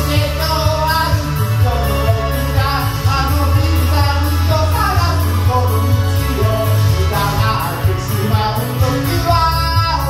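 A man singing a Japanese rock song into a karaoke microphone over the karaoke backing track, with a steady bass and drum beat underneath.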